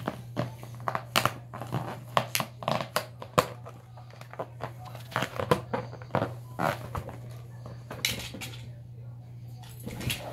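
Latex balloon being gripped and rubbed by a capuchin monkey's hands: an irregular run of short rubbery squeaks and crinkling rubs.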